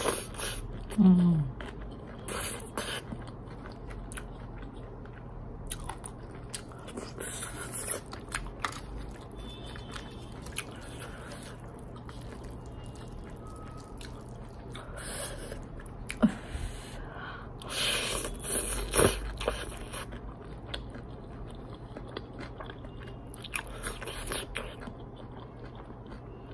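Close-up eating of noodles and chili chicken: chewing and slurping noodles, with occasional clicks and scrapes of a plastic fork and spoon in the tray. A brief low falling hum about a second in is the loudest moment.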